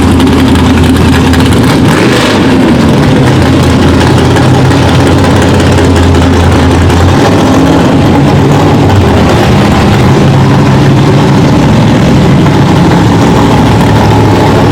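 Car engines idling and running at low speed: a loud, steady low engine hum whose pitch shifts about seven seconds in.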